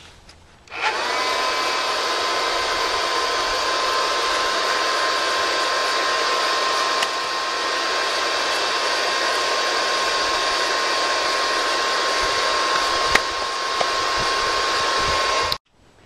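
Handheld hair dryer switched on and running steadily, blowing into the air pipe of a charcoal forge to clear ash out of the tube, with a steady whine over the rush of air. It starts about a second in and cuts off suddenly near the end.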